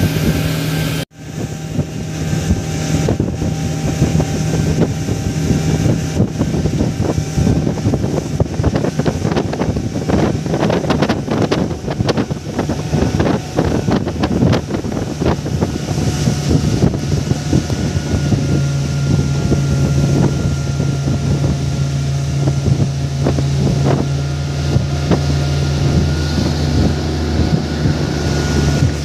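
Small fishing boat's engine running steadily at speed, with wind buffeting the microphone. The sound cuts out for a moment about a second in, and the engine note shifts a little past the middle.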